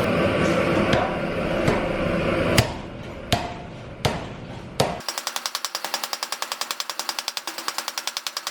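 A steady loud roar with four sharp hammer blows on metal, then, after a cut, a rapid mechanical hammering of about twelve strokes a second as a power tool pounds on steel.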